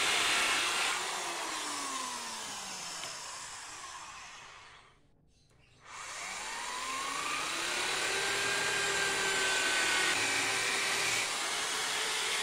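Corded electric drill (Modern M-2150) fitted with a cutting disc, cutting a plastic pipe. Its motor whine falls away to a stop, there is about a second of near quiet about five seconds in, then it spins back up and runs steadily again.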